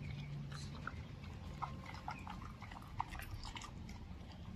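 Tibetan Mastiff biting and chewing raw meat, with irregular wet clicks and crunches.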